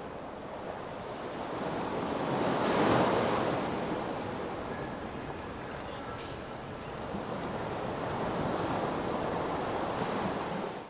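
Sea waves washing on the shore. One swell builds to a peak about three seconds in and ebbs, and another rises near the end.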